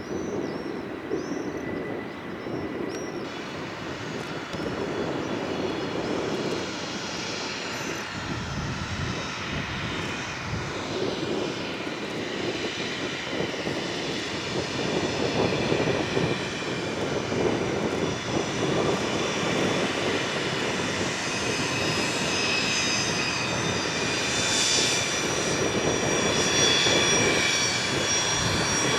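Cessna Citation CJ2+ business jet's twin turbofan engines running: a steady rushing noise with a high turbine whine. The whine and the overall level grow louder toward the end.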